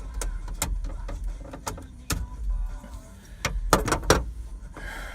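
Sharp plastic clicks and knocks of a truck's dash trim and head unit being handled and pried out, a cluster of them close together near the end, over a steady low hum.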